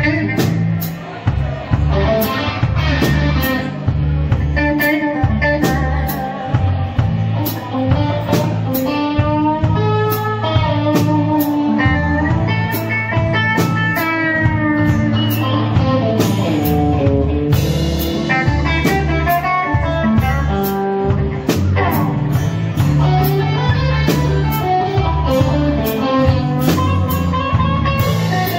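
Live blues band playing a slow blues: an electric guitar plays a lead full of bent notes over drum kit and bass guitar, with cymbal strikes throughout.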